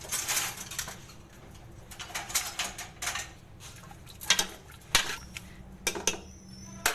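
A spoon stirring goat's head pieces, onions, tomatoes and water in a pressure cooker, scraping and clinking against the pot in a few separate strokes.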